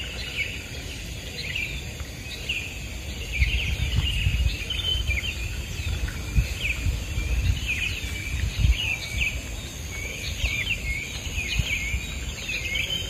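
Small birds chirping with many short, quick calls over a steady high-pitched insect drone and a low rumble.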